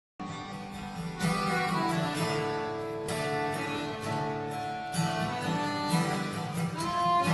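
Instrumental passage on piano accordion and acoustic guitar, with held accordion notes over the guitar, starting abruptly just after the beginning.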